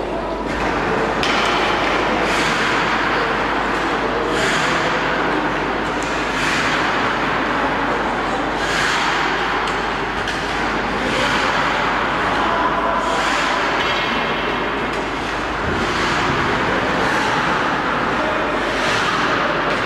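Hockey skate blades carving and scraping the rink ice in repeated hissing strokes every second or two, over a steady hall noise.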